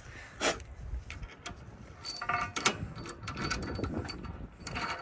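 Hand ratchet wrench clicking in short runs of rapid clicks while bolts are tightened.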